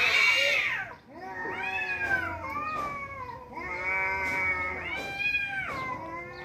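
Two tomcats yowling at each other in an angry standoff before a fight: long, wavering caterwauls that rise and fall in pitch, about three drawn-out calls with short breaks, the voices overlapping at times.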